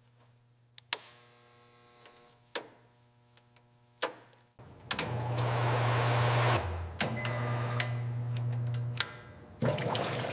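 Several sharp clicks, then about halfway in a loud, steady hissing noise with a low motor-like hum starts up. It runs in spells, dropping out briefly twice and starting again near the end, like an air or power tool being worked in a workshop.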